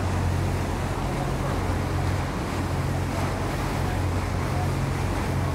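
Tour boat's engine running steadily under way, a constant low hum, with a steady rush of wind and water over it.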